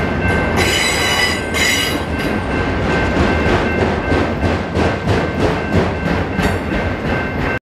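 Freight train of autorack cars rolling past, wheels clacking steadily over the rail joints, with two short high-pitched wheel squeals about a second in. The sound cuts off abruptly near the end.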